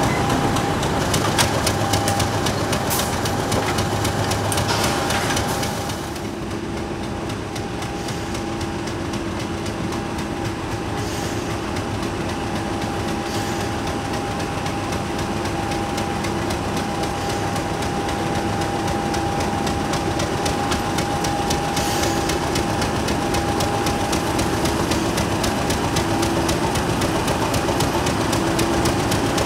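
Heritage diesel-hauled train running steadily, with a steady high whine throughout. The sound drops a little about six seconds in.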